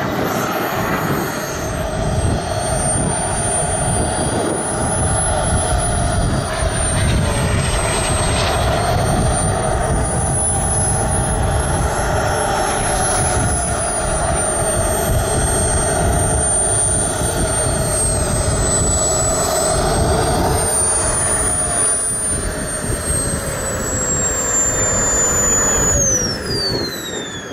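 Model jet's small turbine engine running with a loud, high whine and rushing exhaust. The whine slowly rises and falls in pitch, then drops steeply about a second before the end as the turbine spools down.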